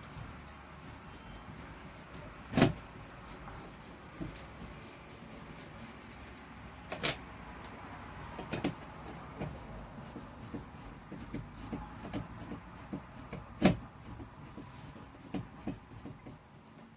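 Scattered clicks and taps of hand work on a plastic RV ceiling light fixture as its mounting screws are taken out, with a few sharper knocks standing out among lighter ticks.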